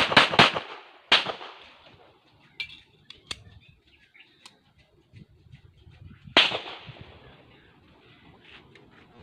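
.45 calibre pistol firing: the last three shots of a rapid string in the first half second, another shot about a second in, then a single shot about six seconds in. A few faint clicks fall in the gap between.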